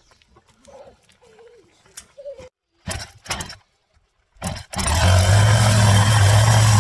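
Chainsaw engine running loud and steady from about five seconds in, after a few short bursts of noise.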